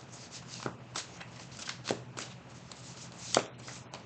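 A deck of tarot cards being shuffled and handled, giving scattered sharp taps and snaps, the loudest a little past three seconds in.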